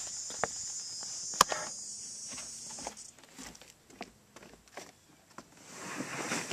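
Steady high buzz of insects with one sharp click about a second and a half in; the buzz cuts off abruptly about three seconds in. Then come scattered footsteps and knocks on wooden dock boards, and a swell of rushing noise near the end.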